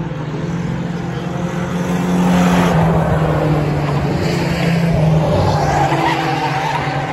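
Engines of pickup race trucks running at speed around a short oval track. They grow louder as trucks pass about two seconds in, stay loud until about five seconds, then ease off.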